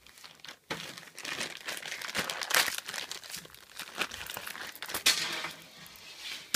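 Clear plastic bag crinkling and rustling as it is opened by hand, starting about a second in, with sharp clicks of the steel links of a saw chain being pulled out of it.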